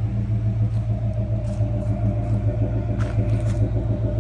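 Plymouth Volare's engine idling steadily, its exhaust giving a pulsing low rumble through a Thrush chambered muffler.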